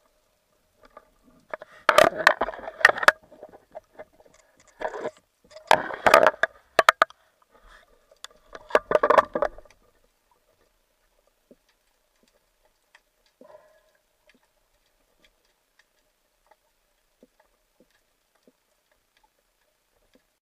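Underwater knocks and scraping from a speargun and its shaft being handled among rocks after spearing a cuttlefish, in three bursts around two, six and nine seconds in, then only a few faint ticks.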